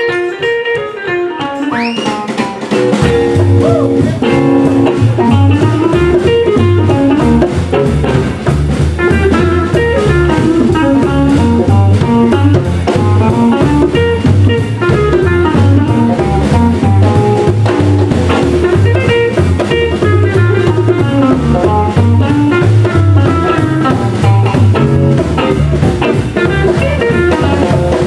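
Live jump blues band playing: guitar over upright bass, drum kit and conga drums. It opens on a held guitar chord, and the bass and drums come in about three seconds in.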